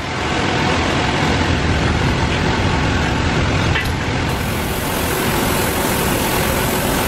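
Hand-held gas torch burning with a steady hiss, used to heat an old bearing off a pump shaft.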